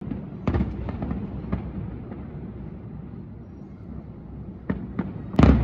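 Distant aerial fireworks bursting: a string of sharp bangs, a few in the first two seconds, then a pair, then the loudest bang near the end, over a steady low background rumble.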